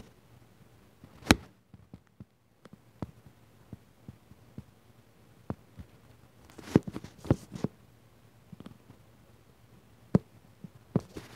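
Irregular light knocks and clicks of handling close to the microphone: a sharp knock about a second in, a short flurry of taps with some rustling a little past the middle, and another knock near the end.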